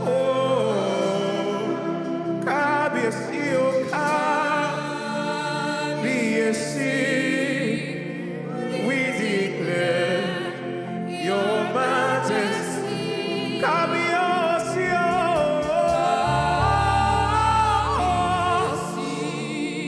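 Live gospel worship music: a singer's voice in long, sliding melodic runs over held keyboard chords, with a deep bass note swelling in near the end.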